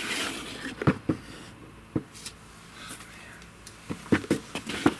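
Several soft knocks and clicks at irregular intervals, with a short rustle at the start: handling noise of a hand-held camera and light against a window.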